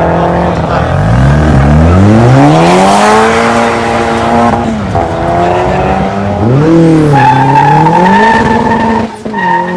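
A performance car's engine revving hard under load while its tyres squeal. The pitch dips, climbs steadily for about two seconds and holds, drops sharply about halfway through, then dips and rises again before settling at a steady high note.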